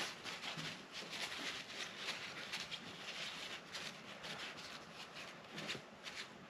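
Tissue paper rustling and scrunching in the hands as it rubs a baitcasting reel's spool clean, degreasing it; a run of short, scratchy rustles.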